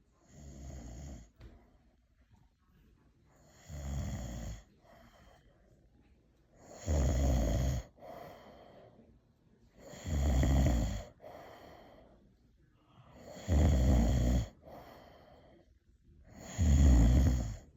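An elderly man snoring in his sleep: six loud snores about three seconds apart, each followed by a short, softer breath sound, growing louder toward the end.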